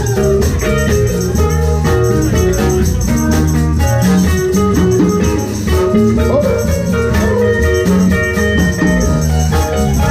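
Live blues band playing loud and steady, with guitar, a moving bass line, drums and a shaker-like rattle.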